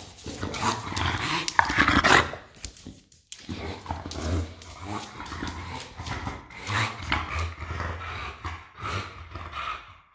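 An English bulldog making low grunting noises and snuffling breaths in repeated bursts, with scattered sharp clicks of its claws on the tile floor.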